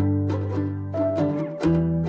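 Background music: a plucked-string melody over low sustained bass notes.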